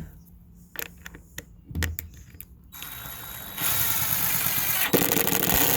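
Worx 20-volt cordless drill driving a screw back into a board, running steadily for about three seconds and growing louder in its last second as the screw goes in, after a few light clicks of handling.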